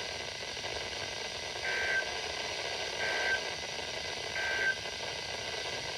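Three short, identical screeching digital data bursts from an Emergency Alert System weather-radio broadcast, about a second and a half apart, over steady radio hiss: the end-of-message code that closes a high wind warning.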